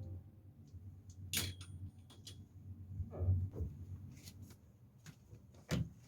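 Scattered sharp clicks and knocks with rustling in a small echoing room: clothes and hangers being handled while laundry is hung up to dry. The loudest click comes near the end.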